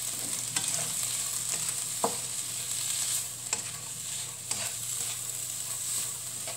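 Bean sprouts, petai and chilies sizzling in oil in a wok while being stir-fried with a plastic slotted spatula, with a few knocks and scrapes of the spatula against the pan.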